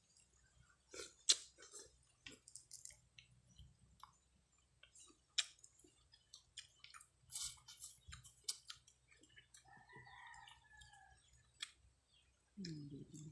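Close-up eating of sardine sinigang: chewing, slurping and lip smacks, with sharp clicks of a utensil now and then. A short call in the background about ten seconds in, and a brief low voiced sound near the end.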